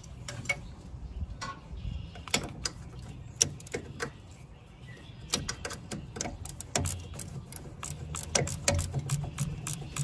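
Ratchet wrench clicking in short runs of rapid clicks as the bolts holding the fuel lift pump are tightened.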